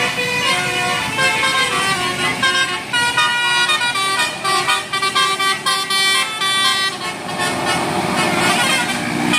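Tour bus's 'telolet Basuri' musical horn playing a tune of short tooting notes that step up and down in pitch.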